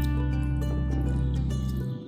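Instrumental background music, with sustained notes over a steady low bass; it briefly drops away near the end.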